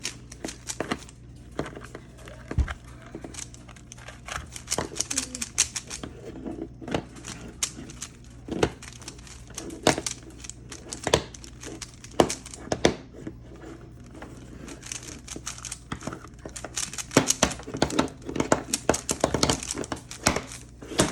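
An extremely loose Rubik's cube being turned fast during a speedsolve: quick runs of plastic clicks and clacks broken by short pauses.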